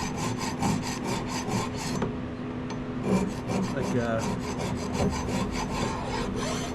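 Hand file rasping back and forth over a brake caliper bracket to clean off rust, in quick strokes of about five a second, with a pause of about a second near the middle.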